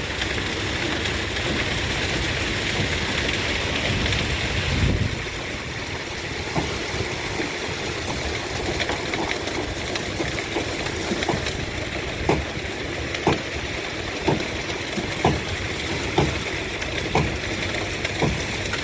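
Wet concrete being poured for a reinforced road foundation, rushing and sloshing for about five seconds and then stopping, followed by a series of sharp knocks about once a second.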